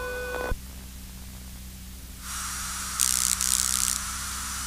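Aircraft radio static between transmissions over a steady low hum: a hiss comes on about two seconds in, with a louder burst of static from about three to four seconds in.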